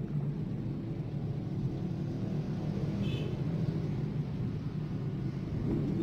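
Steady low background rumble, with a brief faint high-pitched chirp about three seconds in.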